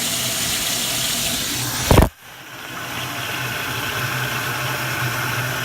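Water from a garden-hose pressure feed running steadily into a Kohler Kingston toilet bowl as it fills. About two seconds in there is a sharp thump, after which the rush cuts out and slowly builds back up.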